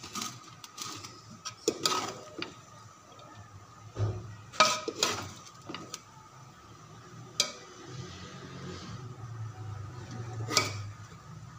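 Metal slotted spoon knocking and scraping against an aluminium cooking pot while cooked rice is stirred, with several sharp, separate clinks.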